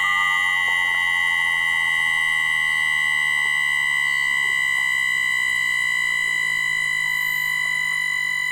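Bombardier MITRAC IGBT VVVF traction inverter of a London Underground 2009 Tube Stock train, picked up electromagnetically by a telephone pickup coil. It gives a loud, steady electronic whine at one fixed high pitch, with fainter steady tones above and below. The tone pattern shifts right at the start, from gliding tones to this fixed one.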